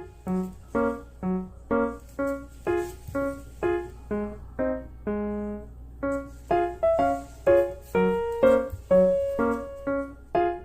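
Background music: a light keyboard tune of short, evenly spaced notes, about two a second.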